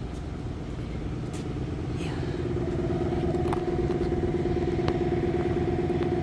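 A motor running steadily with a low rumble and a steady hum that comes in about two seconds in and then holds. A few light clicks sound in the second half.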